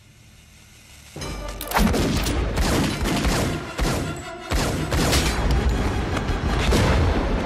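Film action soundtrack: after about a second of near quiet, rapid pistol gunfire bursts in over a loud orchestral score with deep booms, dropping out briefly just past the middle before carrying on.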